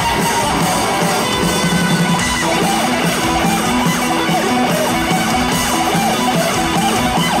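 A live rock band playing at full volume: distorted electric guitar, bass and drums. From about two and a half seconds in, a repeating riff of alternating notes drives the music.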